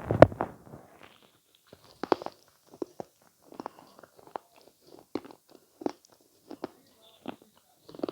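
A bite into avocado, loudest right at the start, followed by steady chewing heard close to the microphone as short clicks about every two-thirds of a second.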